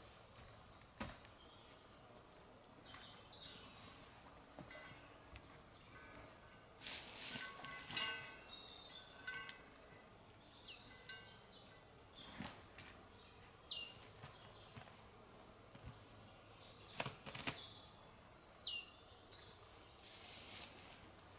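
Quiet forest ambience with small birds calling now and then, including two quick calls that sweep sharply downward in pitch. Scattered short clicks and knocks and brief rustles come between the calls.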